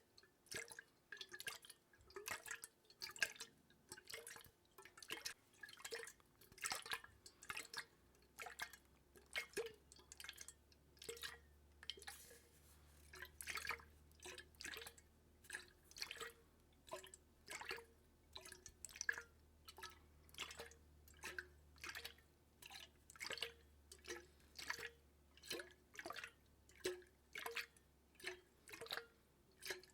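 Water dripping steadily, drop after drop, about two a second, each a short sharp plop.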